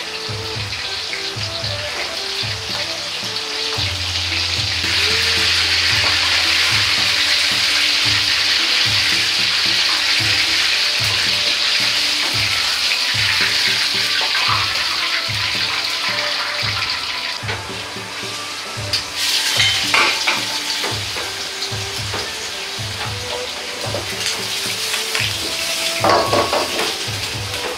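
Breaded shrimp deep-frying in hot oil in a wok: a steady sizzle that swells a few seconds in and dies down after about fifteen seconds as the shrimp are lifted out. Later come sharp metal clinks of a ladle against the wok as sausages fry. Light background music with a steady beat plays underneath.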